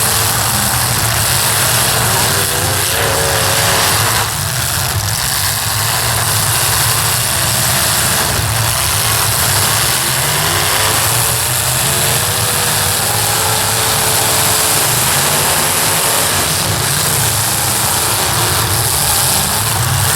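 Several demolition derby cars' engines running and revving together, a loud, steady mixed drone with pitch rising and falling.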